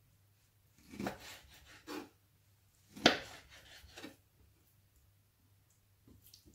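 Kitchen knife cutting raw sheep's liver into cubes and knocking on a wooden cutting board: about four knocks roughly a second apart, the loudest about three seconds in, with soft slicing and rubbing between them.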